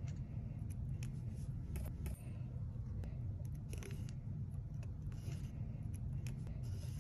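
A razor blade and then a flat metal file scraping old glue residue off the neck of a resin trolling-lure head, in short irregular strokes over a low steady hum.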